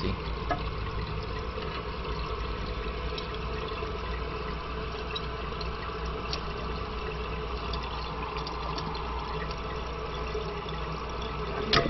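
Steady running water from a toilet tank refilling through its fill valve, with a few faint clicks of parts being handled.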